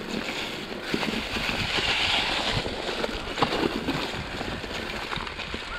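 Mountain bike running down a rough trail: the tyres crunch over the ground, and the frame and chain clatter with many sharp knocks. Wind rushes steadily on the microphone.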